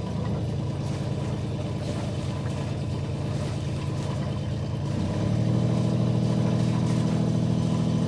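Yacht's Volvo inboard diesel running with the gearbox in neutral, revved up from idle to about 1,100–1,200 rpm, the speed for charging the batteries. Its note steps up at the start and again about five seconds in, then holds steady.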